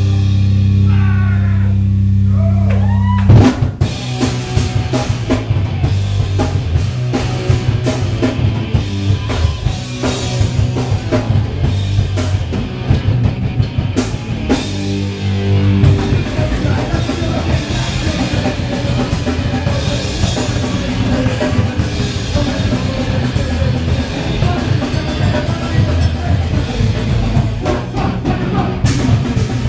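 Live hardcore punk band playing loud: distorted electric guitars, bass and fast drumming. It opens on a held, ringing chord, the full band crashes in about three seconds in, holds another chord briefly about halfway, then drives on with the drums.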